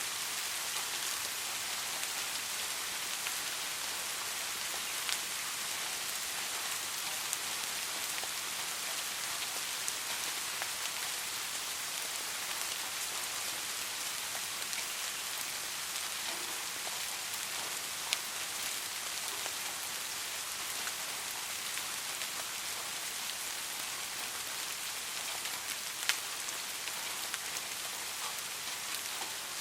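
Soft, steady rain falling on a surface, an even hiss with occasional sharper individual drops.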